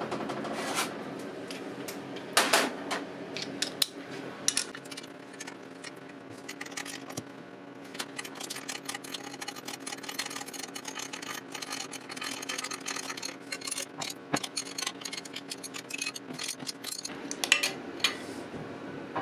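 Hand ratchet clicking in quick runs as the bolts of a steel alternator bracket are tightened, with light metallic clinks of the tool against the bracket, over a faint steady hum.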